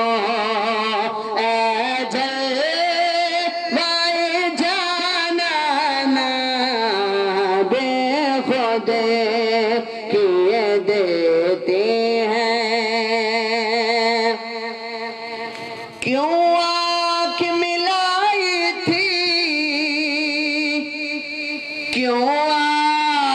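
A man's devotional recitation sung into a handheld microphone: one voice holding long, ornamented notes with a quavering vibrato, with short pauses for breath about fifteen and twenty-one seconds in.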